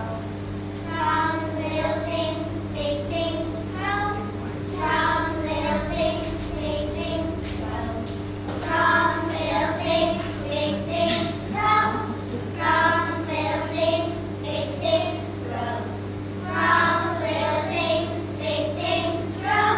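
A group of children singing together in unison, with a steady low hum underneath.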